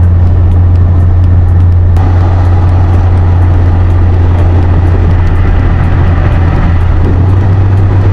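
Vehicle cruising at highway speed, heard from inside the cab: a loud, steady low drone of engine and road noise under a constant hiss of tyres and wind.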